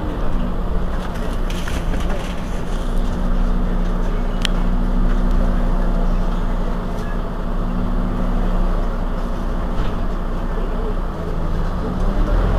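Mercedes-Benz Citaro C2 city bus idling at a stop: a steady engine hum over a low rumble. A short click about four and a half seconds in.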